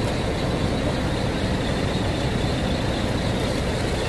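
Tour bus engine idling with a steady low rumble.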